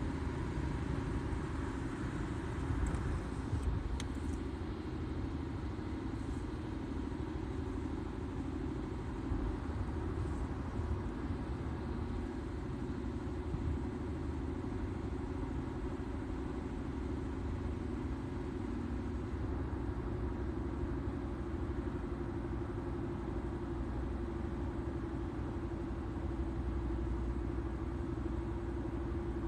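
2006 Honda Accord EX on the move, with a steady low rumble and hum: the abnormal noise its owner was told comes from a tire, still there after all four wheels were balanced and aligned.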